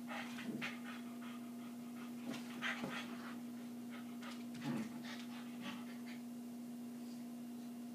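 Silky Terriers panting in short, irregular bursts while they play, over a steady low hum.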